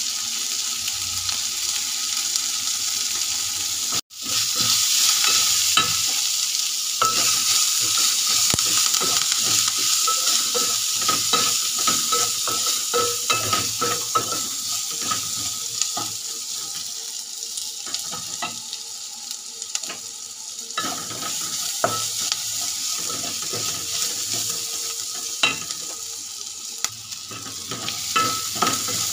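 Sliced onions, green chillies and curry leaves sizzling in hot oil in a metal pot, stirred with a wooden spatula that scrapes and taps against the pot. The sound drops out for an instant about four seconds in, and the sizzling is louder after it.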